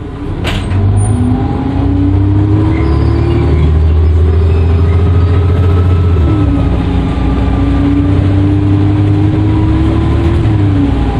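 Dennis Trident II double-decker bus pulling away: a sharp click, then the engine note rises steadily, drops at an upshift of the automatic gearbox about six seconds in, rises again and changes up once more near the end. A faint turbo whistle rises with the engine.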